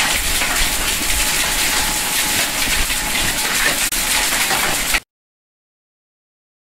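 Hail and rain pelting down on an inflated car cover, lawn and pavement: a dense, loud clatter of small hits. It cuts off suddenly about five seconds in.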